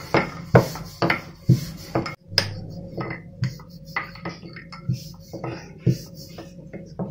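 Wooden rolling pin rolling golgappa dough discs on a granite counter, knocking and clacking against the stone with each back-and-forth stroke, about two strokes a second.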